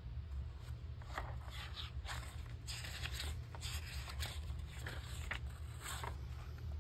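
Paper rustling and sliding as a page of a picture book is turned by hand and smoothed flat: a string of soft scrapes and crinkles.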